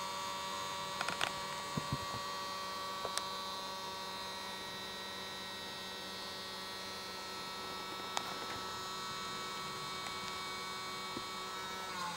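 Xtreamer media player's cooling fan running at its startup speed: a steady, many-toned grinding whine, interrupted by a few brief clicks. This terrible grinding noise comes only at startup, and it goes once the fan drops back to its normal speed.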